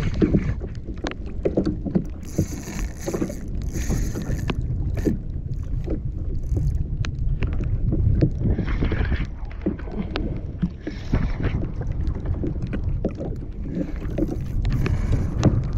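Wind rumbling on the microphone on a sea kayak, with scattered clicks and knocks and a few short bursts of hiss.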